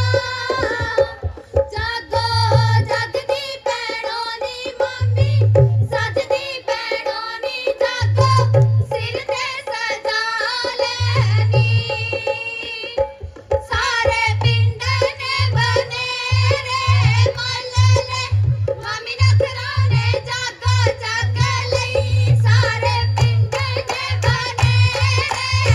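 Women singing Punjabi gidha folk songs into microphones over a steady hand-drum beat. The singing breaks off briefly about halfway through, and the drumming gets busier after that.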